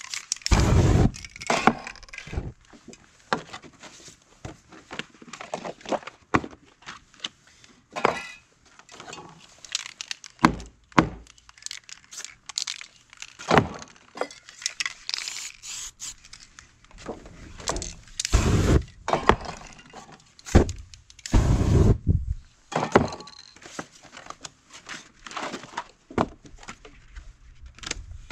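Spray paint work: short hissing bursts from aerosol spray cans, mixed with irregular knocks, clinks and rustles of cans and paper masks being handled and set down on the board.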